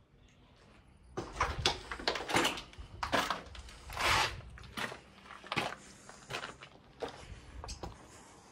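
Footsteps crunching and scuffing, roughly one step every three-quarters of a second, starting about a second in.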